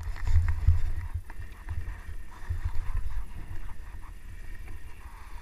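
Rumble of a moving dog sled: runners sliding and bumping over snow, with wind buffeting the action-camera microphone and a few low thumps in the first second.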